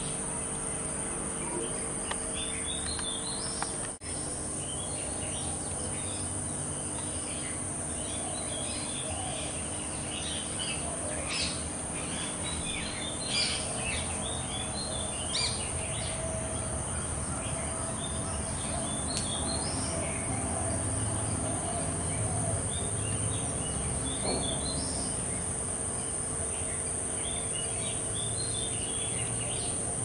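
Many birds chirping in short, scattered calls over a steady, high-pitched insect drone, with a brief dropout about four seconds in.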